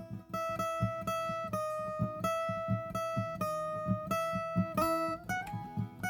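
Viola caipira playing a slow solo melody of held notes over a steady plucked low accompaniment.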